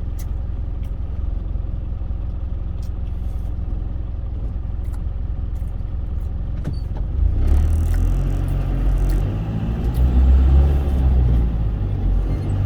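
Cargo truck's engine and road noise heard from inside the cab while driving: a steady low rumble that grows louder about seven seconds in.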